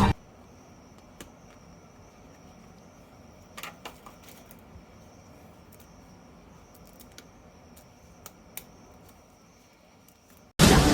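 Faint room hiss with a thin high whine, broken by a handful of small sharp clicks and taps, a few of them close together near four seconds in. Loud music cuts in near the end.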